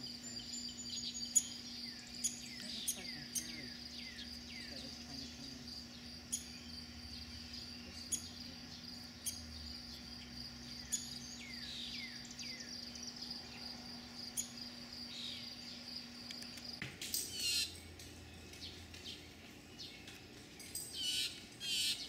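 Backyard songbirds calling at the feeders in short, falling chirps over a steady high insect trill, with occasional sharp ticks. The trill stops about seventeen seconds in, and the chirping grows louder and busier near the end.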